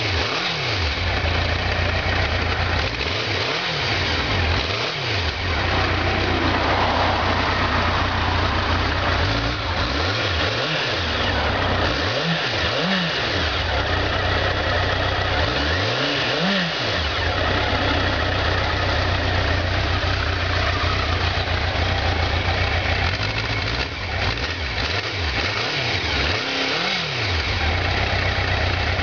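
Honda Nighthawk 750's air-cooled inline-four idling steadily at about 1,200 rpm in neutral, heard close to its chrome muffler, warming up after a cold start.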